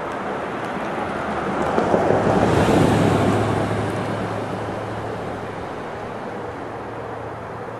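A rushing noise that swells to a peak about three seconds in and then slowly fades, over a steady low hum.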